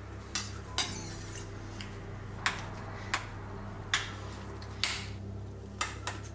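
A chef's knife chopping soft mozzarella, the blade knocking on the cutting board about eight times at uneven intervals.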